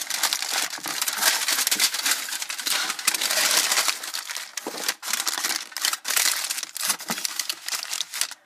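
Aluminium foil being crumpled and crimped by hand, sealing a foil parcel tight around a cod fillet. A dense, crackling crinkle that comes in irregular handfuls, with brief pauses between them.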